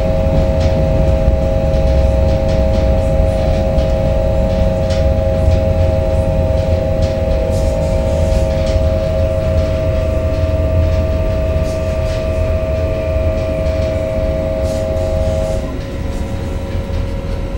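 Končar low-floor electric train running, heard from inside the passenger saloon. A low rumble of wheels on track runs with a steady whine from the traction equipment, and scattered clicks and rattles come through. Near the end the main whine stops and the sound drops a little, as the train slows for its stop.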